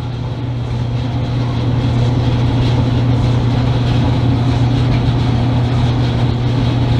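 Old Kenmore electric dryer running: a steady motor hum with the drum turning. The heating element is not coming on.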